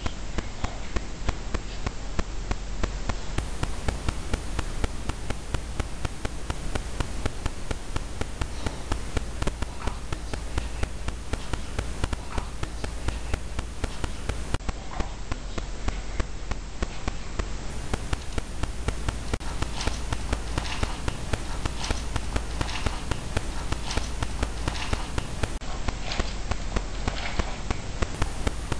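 Amplified recorder audio: a steady loud hiss with frequent small clicks and taps. It is played as an EVP in which the uploader hears a voice saying 'again'.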